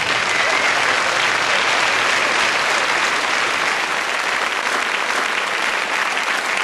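Studio audience applauding, a dense steady clatter of many hands, at the punchline of a comedy sketch.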